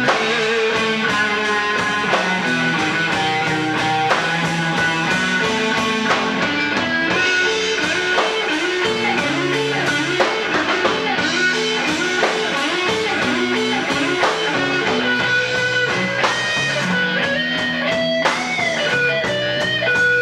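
Live band playing, led by electric guitar over drums, with bent guitar notes about three-quarters of the way through.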